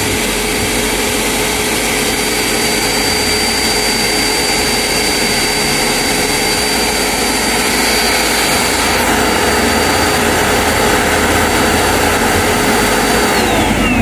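Electrolux Well Q7 cordless handheld vacuum cleaner's motor running steadily with a high whine, then winding down with a falling pitch about a second before the end as its single battery runs flat.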